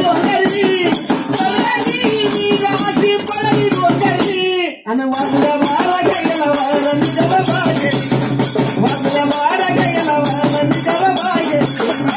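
Live Marathi folk-devotional song: a solo voice singing a wavering melody over fast, jingling hand percussion. The music breaks off briefly about five seconds in, then carries on.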